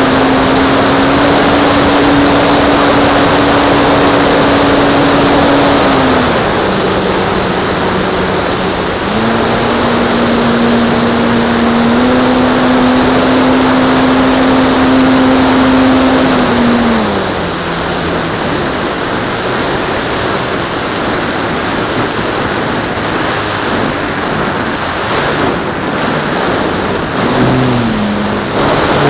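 Radio-controlled model plane's motor and propeller running in flight, a steady hum whose pitch steps with the throttle: it drops about six seconds in, comes back up around nine seconds, then falls and gets quieter after about seventeen seconds.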